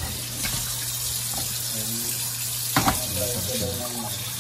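Kitchen faucet running steadily into a stainless-steel sink as a whole walleye is rinsed and rubbed clean of its slime by hand under the stream. A brief knock sounds about three seconds in.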